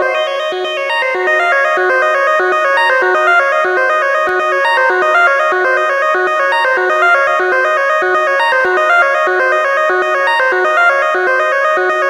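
Noise Engineering Sinc Iter Eurorack oscillator playing a sequence: a rapid run of short notes stepping in pitch, over steady held tones.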